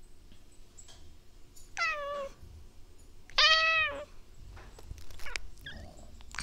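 Domestic cat meowing twice, the second meow louder and longer than the first.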